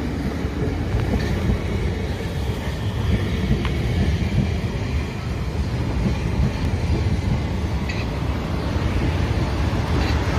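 South Western Railway Class 450 Desiro electric multiple unit running past along the platform: a steady rumble of wheels on rails with a few faint clicks.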